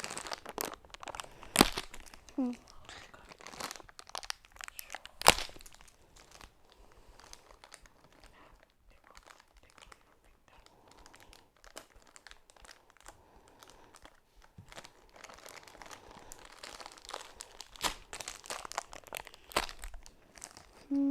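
Toy packaging crinkling and rustling as hands work at opening it, a package that is hard to open, with two sharp snaps about one and a half and five seconds in.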